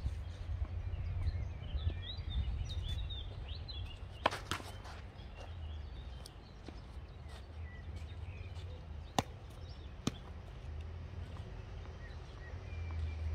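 Tennis balls struck by rackets: a quick cluster of sharp pops about four seconds in, then a single loud crack about nine seconds in and a fainter one a second later. Birds chirp through the first few seconds over a low steady rumble.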